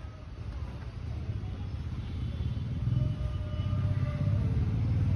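Steady low outdoor rumble that swells a little about three seconds in, with faint distant voices above it.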